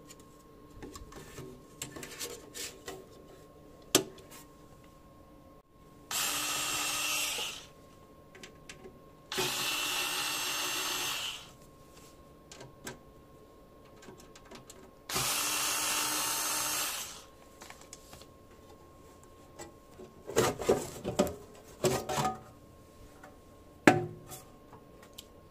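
Handheld electric screw driver running in three bursts of about two seconds each, driving screws while a drive or part is fastened into a NAS case. Sharp clicks and knocks of handling follow near the end.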